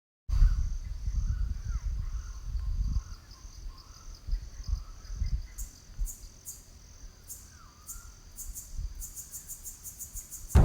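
Tropical bush ambience: a steady high drone of insects, joined about halfway by pulsing chirps that come faster toward the end, with a few faint bird calls. Wind rumbles on the microphone, strongest in the first few seconds.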